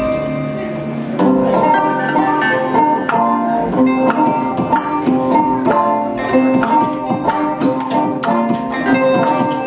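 Live Middle Eastern ensemble music: clarinet melody over plucked oud and bouzouki-type lute, with a hand drum keeping a fast rhythm. The playing grows fuller and the drumming denser about a second in.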